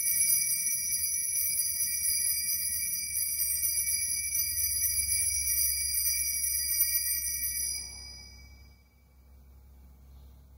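Altar bells rung at the elevation of the chalice, signalling the consecration: a bright, high jingling ring of several tones, shaken continuously for about eight seconds and then fading away.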